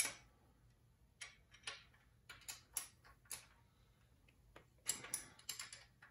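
Steel open-end wrenches clicking and clinking against the valve tappets of a Mopar flathead six engine. It is a scattered string of short, sharp metal ticks, with a quick cluster of them about five seconds in.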